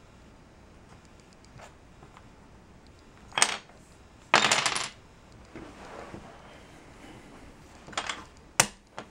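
Wooden burr-puzzle pieces, cut from square stock, clacking against each other and on a wooden tabletop as they are handled and fitted together. There are a couple of sharp knocks about three and a half seconds in, then a short rattling clatter, softer scuffing, and more sharp knocks near the end.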